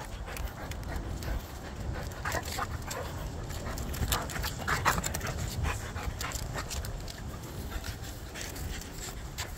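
Dog panting on a leash walk, with a few brief higher sounds in the middle, over a low rumble.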